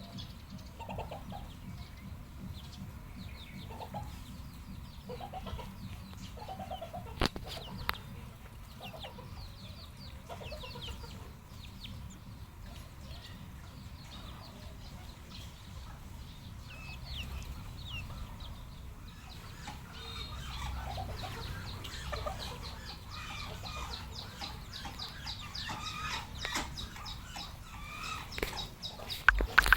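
Red junglefowl clucking, with many short calls repeating and high chirps throughout. A single sharp click about seven seconds in.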